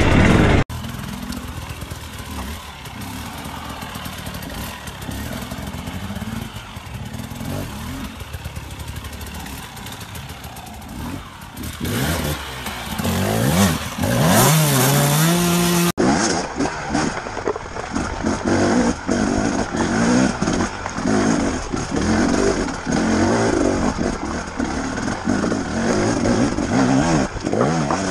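Enduro dirt bike engines revving and blipping the throttle while riding over rocks, across several spliced clips. A strong rising rev comes between about 12 and 16 seconds in, then the sound cuts abruptly to a busy, choppy engine note with rapid throttle blips.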